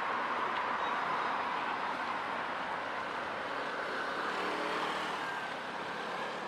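Road traffic: passing cars give a steady rush of tyre and engine noise that eases slightly. About four seconds in, a faint engine hum joins it.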